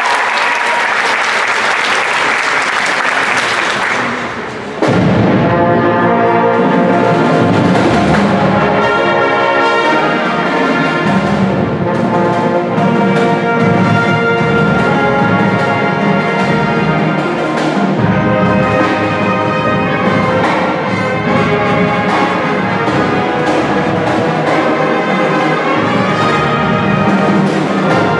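Audience applauding for about four and a half seconds, then a high school marching band comes in suddenly and loudly with its next number: brass horns and drums playing together.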